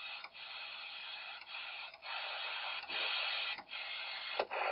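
CB radio receiver hissing with static while its channel selector is turned, the hiss breaking briefly at each of about six channel changes. No station comes through: the band is dead.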